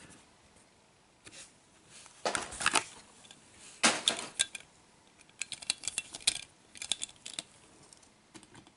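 Hands handling a 1:64 Hot Wheels Monster Jam die-cast monster truck and its cardboard collector card: several short bursts of clicking, rattling and light crinkling as the toy and card are turned over and moved.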